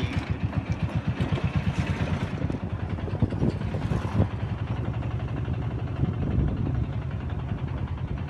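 Small vehicle engine running with a fast, even chugging pulse, heard from aboard the vehicle as it drives along. A few brief knocks or rattles come about four seconds in.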